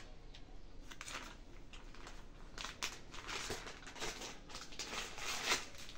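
Plastic packaging crinkling and rustling in irregular bursts as hands rummage through packets in a cardboard box, busier from about halfway through.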